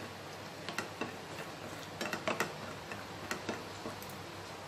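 Cashews being stirred as they fry in ghee in a nonstick frying pan: light, irregular clicks and taps of the spatula and nuts against the pan.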